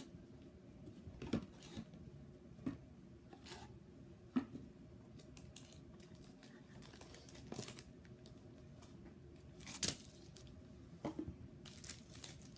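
Plastic wrapping being torn and crinkled off a boxed Pokémon trading card set, with scattered sharp clicks and taps of the box being handled and opened.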